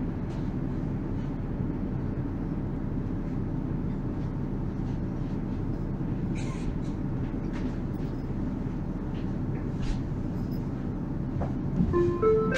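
Steady low hum and rumble of an electric tram standing at the track, with a few faint clicks. Near the end a short series of stepped whining tones rises as the traction motors start to pull the tram away.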